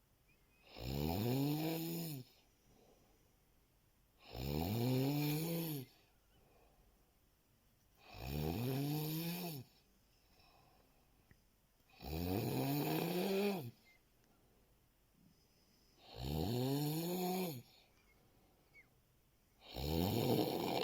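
A man snoring in his sleep: long, loud snores, one about every four seconds, each rising then falling in pitch. Five full snores, with a sixth starting near the end.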